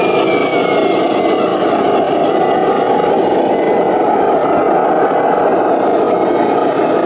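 Radio-controlled model vehicle running: steady mechanical noise with a thin, high motor whine that drops a little in pitch about a second in and then holds.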